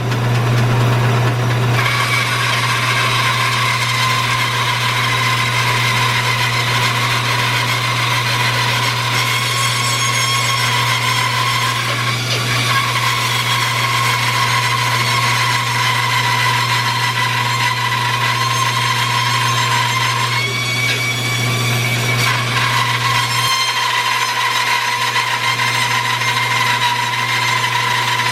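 Bandsaw running and cutting lengthwise through a green maple log: a steady motor hum with a whine from the blade in the wood, the whine wavering a little about three-quarters of the way through.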